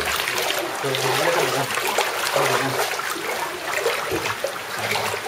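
Floodwater splashing and trickling in a steady dense rush, with many small sharp splashes.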